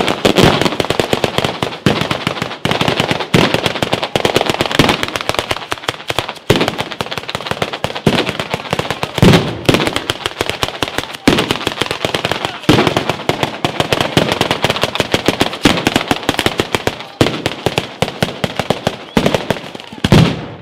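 Batteria alla bolognese: firecracker chains strung on lines between poles going off in a dense, continuous crackle of bangs, with heavier reports every couple of seconds. The crackle stops abruptly just before the end.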